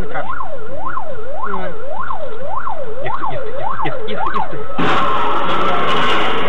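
Emergency vehicle siren in a fast rising-and-falling yelp, about two sweeps a second. It stops about five seconds in, when a loud burst of noise takes over.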